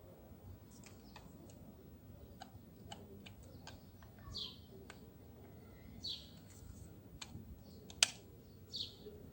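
Faint small clicks and taps of hair-clipper parts being handled and fitted back together, with a sharper click about eight seconds in. A few short high bird chirps are heard in the background.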